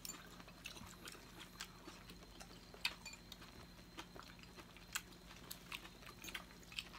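Faint eating sounds of people chewing noodles: scattered small clicks and mouth smacks, the sharpest about three and five seconds in.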